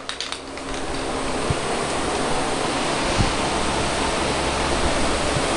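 Aerosol spray paint can spraying a light dust coat, a steady hiss that builds over the first second and then holds.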